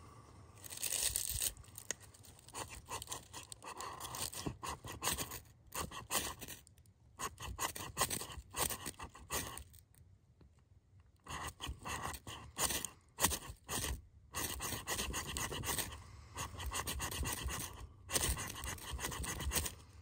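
A ferrocerium rod scraped hard with a knife spine in quick repeated strokes, in bursts with brief pauses, throwing sparks into a pile of wood shavings to light a fire.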